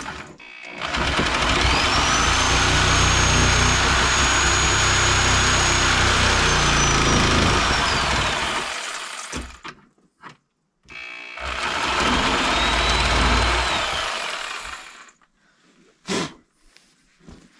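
Electric power saw cutting a wooden door shorter. The motor spins up to a steady high whine for about eight seconds of cutting and winds down, then runs a second, shorter cut of about four seconds. A single sharp knock follows near the end.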